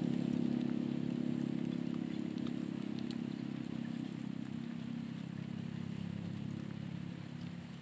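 A motor vehicle's engine on the nearby road, a steady low hum that fades gradually as it moves off.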